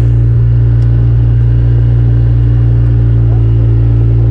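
Polaris RZR side-by-side's engine running at a steady speed on the move, a loud, even low drone.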